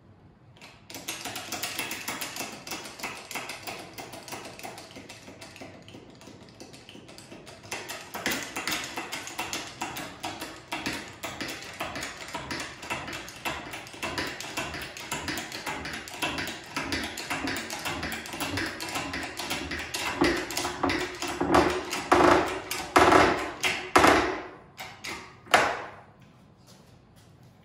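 Hand-pumped hydraulic bottle jack bending a thick steamed ash chair crest around a form: a long run of rapid clicking and creaking, growing louder, with several strong strokes in the last few seconds before it stops.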